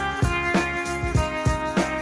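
Background music: guitar over a steady beat.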